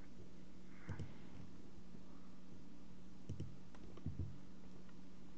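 A few computer mouse clicks, one about a second in and a small cluster around three to four seconds in, over a steady low hum.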